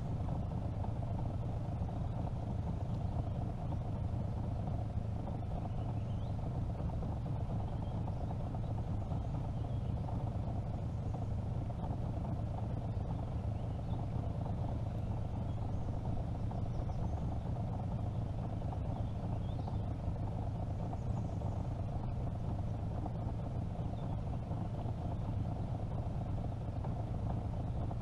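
Small outboard motor on a jon boat idling steadily, a low even hum that does not change.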